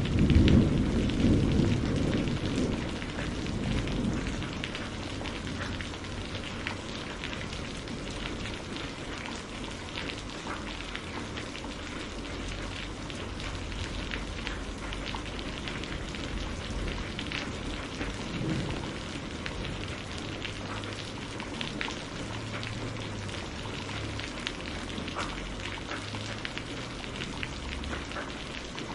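Steady rain with many small drop ticks. A loud roll of thunder opens it and dies away over about four seconds, and a fainter rumble comes about two-thirds of the way through.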